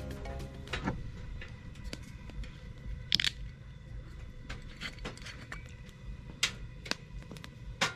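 Wood fire crackling, with scattered sharp pops and snaps and a brief clink about three seconds in.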